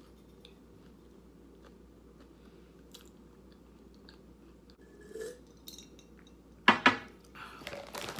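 Close-up chewing and crunching of tortilla chips with dip, faint and clicky at first. About two-thirds in come two loud, short throaty sounds in quick succession, then more wet chewing.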